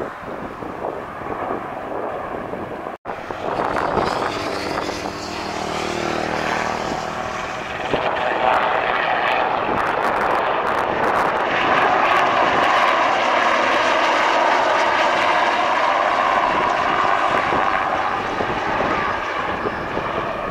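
Westland Sea King Mk41 helicopter flying past: twin turboshaft engines and main-rotor blade noise. It cuts out briefly about three seconds in, the pitch falls between about four and seven seconds, and it gets louder from about eight seconds in.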